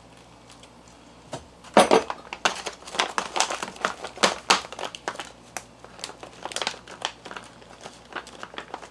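Foil food pouch crinkling sharply and irregularly as it is handled. The pouch holds freeze-dried beef stir fry that has just had water added to rehydrate it. The crinkling starts about a second and a half in, with its loudest crackle just after.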